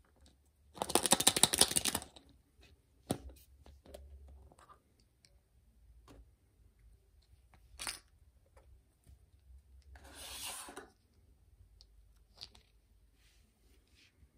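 Plastic surprise egg and the small plastic toys inside it being handled and opened. There is a loud burst of rapid crackling rattle about a second in, then scattered clicks, one sharp click near eight seconds in, and a second, softer rustling burst near ten seconds.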